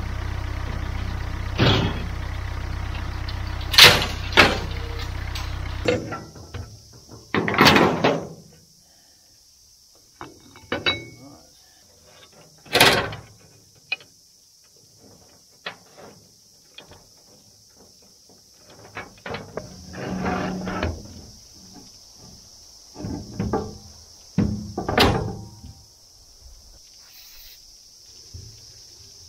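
Loader tractor engine running steadily while the steel mower deck clanks and scrapes as it is set down. After a cut the engine stops and there are scattered sharp metal clanks and knocks from a chain and hand tools on the mower's steel blade hub and deck.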